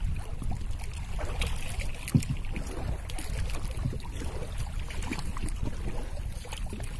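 Small fishing boat at sea with a steady low rumble, and scattered knocks and clicks as fishing gear is handled on board. One sharper knock comes about two seconds in.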